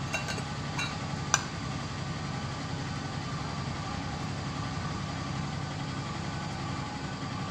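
Steady low hum of a running engine, with a few sharp clinks of steel puja vessels being handled in the first second and a half.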